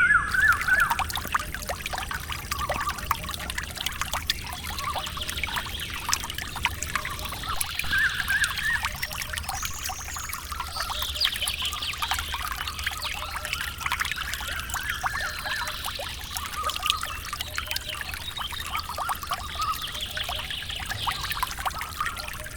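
Water trickling and splashing steadily, with a few bird chirps over it.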